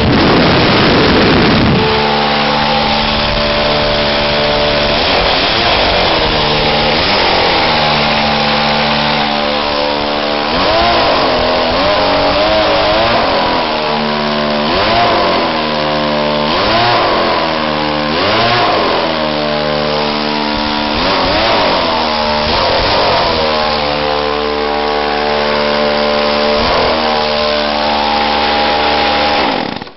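McCulloch gas leaf blower's small two-stroke engine running loud with no exhaust muffler fitted. It settles from high revs in the first couple of seconds, then runs at idle with the throttle blipped up and back down every second or two.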